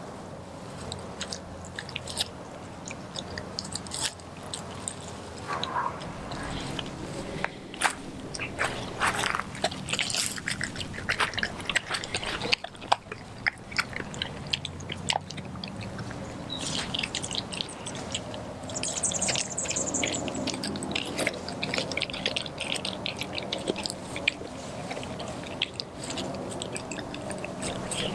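An Australian Kelpie–German Shepherd mix dog chewing and tearing at raw turkey: an irregular run of smacks and clicks from her jaws working the meat.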